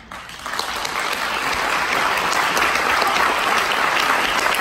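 Audience applauding in a hall. The clapping starts at once, builds within the first second, then holds steady.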